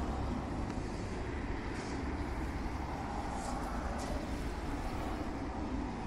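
Steady low rumble of distant vehicle traffic, with a few faint high ticks.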